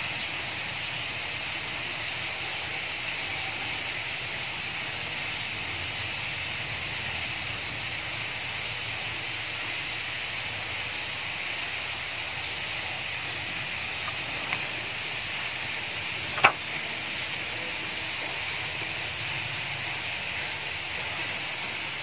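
Steady background hiss, with one sharp click about sixteen seconds in and a fainter one shortly before it.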